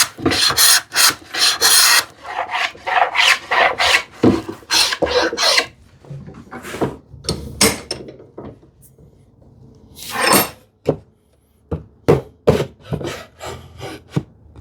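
A hand tool taking wood off the edge of a board in short, repeated strokes, quick and close together for the first few seconds, then slower and spaced out as the fitting is finished.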